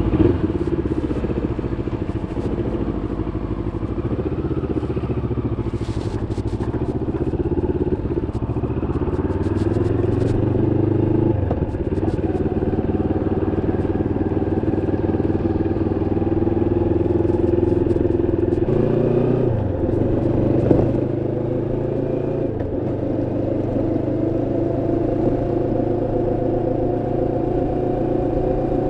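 Moto Morini X-Cape 650's 649 cc parallel-twin engine running on the road, its note climbing gradually and dropping abruptly about eleven seconds in and again around nineteen seconds in, as gears are changed. The engine is new, still being run in at a little over 500 km.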